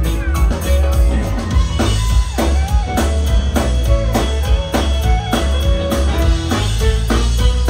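Live country band playing: a drum kit keeps a steady beat of about two strokes a second under electric bass and acoustic guitar.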